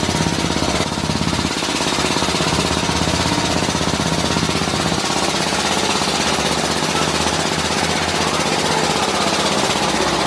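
A pneumatic hammering tool running continuously, with rapid, even strokes.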